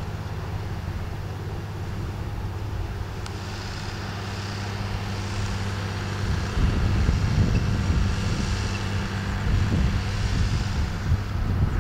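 A John Deere 3050 tractor's diesel engine running steadily under load as it drives a trailed forage harvester picking up silage grass. The sound becomes louder and rougher about halfway through.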